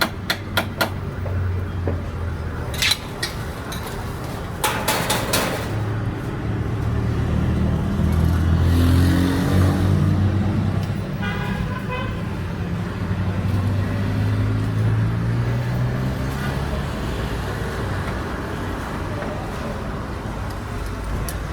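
Road traffic: a steady low engine hum, with a short horn toot about halfway through and a few sharp knocks in the first few seconds.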